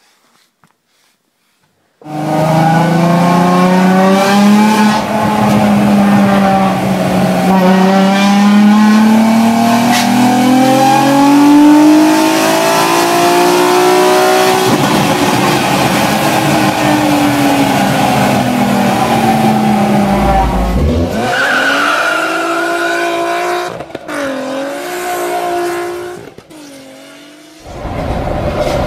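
VW V6 engine in a twin-engine VW Lupo accelerating hard, heard from inside the car, starting about two seconds in. The revs climb steadily, fall at a gear change about halfway, and then drop off with a low thump. They dip and rise a couple of times before the car pulls hard again near the end.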